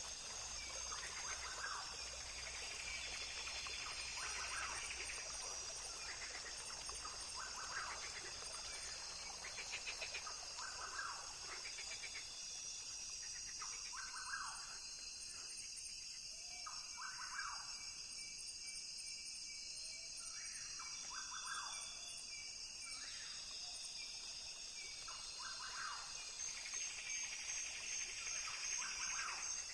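Rainforest ambience: a steady, high-pitched drone of insects, with short animal calls repeating every second or two and fainter rapid chirps above.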